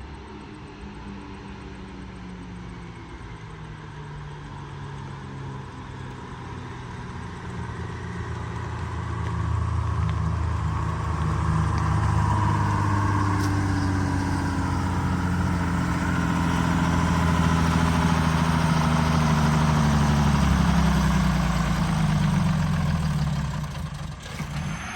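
A heavy vehicle's engine running, getting steadily louder over the first ten seconds or so, then holding loud while its pitch sinks slowly through the second half.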